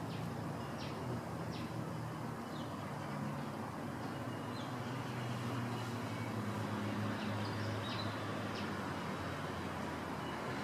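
Steady low rumble of road traffic with a string of short, high bird chirps over it.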